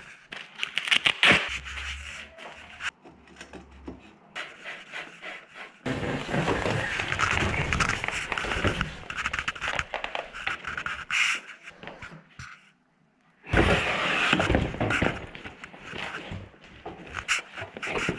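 Hands working on a bicycle and its packaging: scraping, rubbing and rustling with scattered knocks, in several stretches broken by a brief near-quiet gap.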